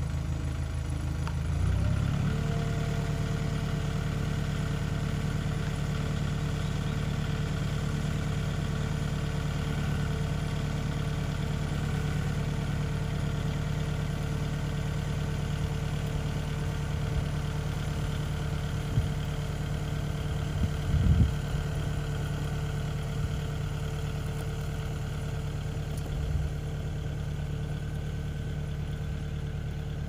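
Tractor engine running steadily, stepping up in revs about two seconds in and then holding its speed. A few short thumps come about two-thirds of the way through.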